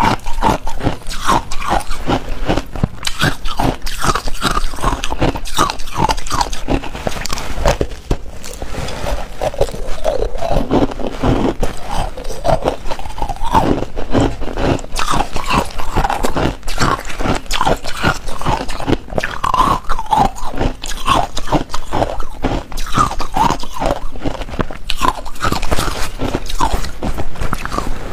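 Ice being bitten and chewed close to a lapel microphone: a dense, continuous run of sharp crunches and cracks as the ice breaks between the teeth.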